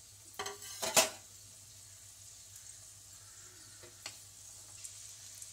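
Oil sizzling steadily as two rolls of atta-and-sattu dough shallow-fry in a kadhai on medium flame. A few sharp taps come about a second in, the loudest near one second, and one more near four seconds.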